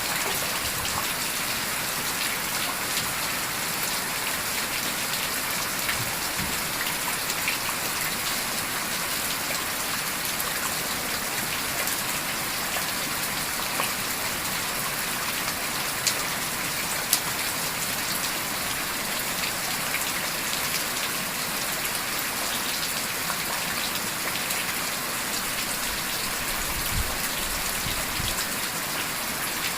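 Heavy rain falling steadily, a dense even hiss of rain on surfaces, with a few sharp clicks here and there.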